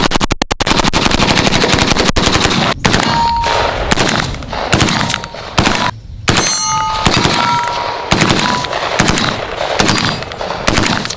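Heckler & Koch G36C 5.56 mm rifle firing on full auto: bursts of rapid shots of varying length, cut apart by brief gaps, with a few short ringing tones between them.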